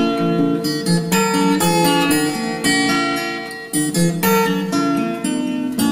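Background music: a plucked guitar playing a melody of quick, distinct notes.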